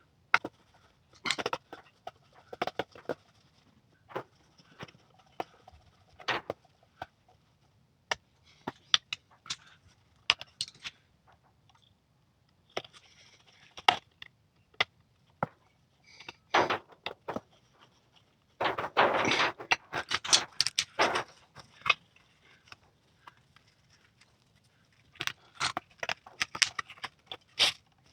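Hands-on trim work on a car's headlining: scattered sharp clicks, taps and knocks as a metal trim strip and tools are handled and fitted. A longer burst of rustling and scraping comes about two-thirds of the way through.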